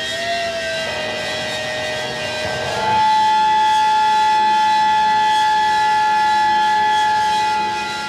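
Live rock band playing an instrumental passage. A sustained lead note wavers slightly, then slides up about three seconds in to a louder, higher note that is held for about five seconds.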